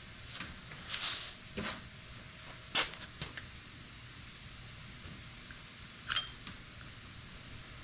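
Scattered clinks and scrapes of a hand tool on metal engine parts while prying and scraping at a stuck part: a scrape about a second in, a sharp knock near three seconds, and a clink near six seconds that rings briefly.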